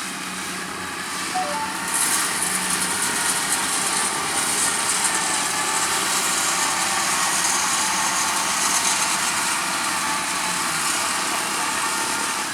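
Farm machinery engine running steadily under load in a rice field, with a high mechanical hiss. It grows louder about two seconds in and stays there.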